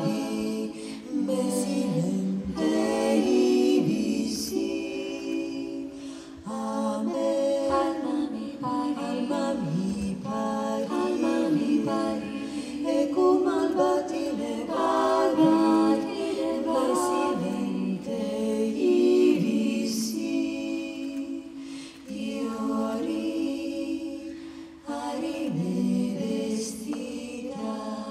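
Female vocal ensemble singing a cappella live, several voices holding sustained lines in harmony, the phrases pausing briefly every few seconds.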